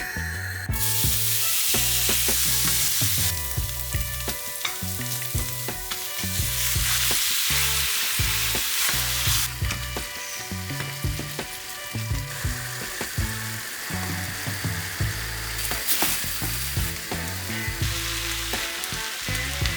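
Food sizzling in hot oil in a pan, the hiss swelling and easing several times, with short clicks of a utensil against the pan. A background music bass line runs underneath.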